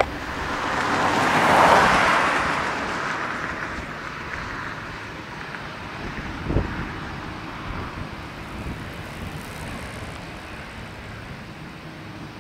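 A passing vehicle's rushing noise swells for about two seconds, then slowly fades. A short thump comes about six and a half seconds in.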